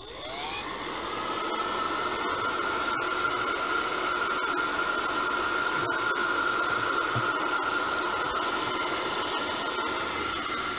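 Hand-held hair dryer switched on: its motor spins up with a rising whine in the first moment, then it blows steadily, a rush of air with a constant high whine, on its low-heat setting.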